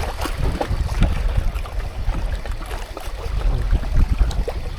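Strong wind buffeting the microphone, an uneven low rumble, with faint scattered ticks above it.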